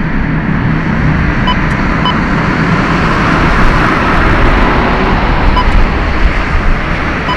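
Steady, loud roar of jet engines with no clear pitch, from the four engines of the departing Boeing 747-400F freighter. A few short, high electronic beeps sound over it.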